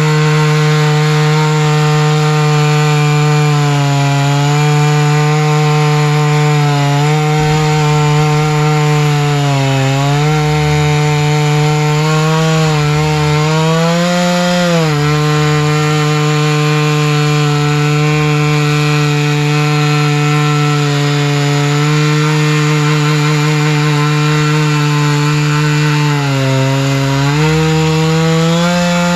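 Chainsaw engine running at high speed as it rips lengthwise through a tamarack log. Its pitch sags briefly several times as the cut loads it, then recovers.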